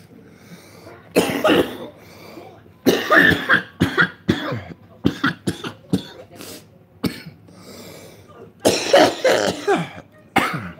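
A man coughing hard in repeated fits from inhaling cannabis joint smoke, with throat clearing between them. The bursts come about a second in, in a dense run from about 3 to 7 seconds, and again near the end.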